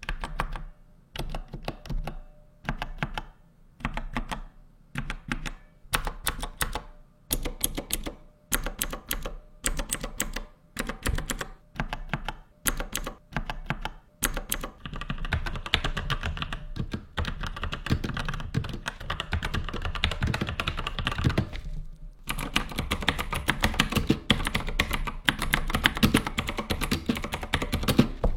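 Typing on Gamepower Ogre mechanical keyboards with Otemu blue and red switches, demonstrating how the switches sound. The first half is short runs of separate key presses with pauses between them; about halfway through it turns into fast, continuous typing, with a brief stop a few seconds before the end.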